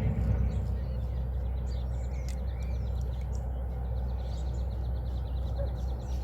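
Birds chirping and calling over a steady low rumble, with a fast, even ticking call running behind.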